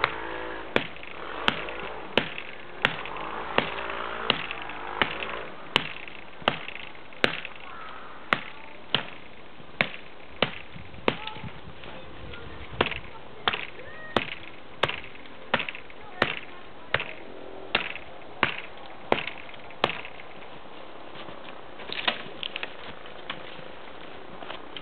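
Small Gerber 2-in-1 pack axe chopping into wood with steady, evenly spaced strikes, about one and a half a second. The strikes stop about three quarters of the way through, followed by a few lighter knocks.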